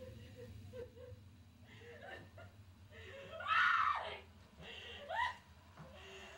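A woman's frightened screaming and whimpering cries. There are small whimpers at first, then a loud scream about three seconds in that falls in pitch, and a short rising cry about five seconds in, over a steady low hum.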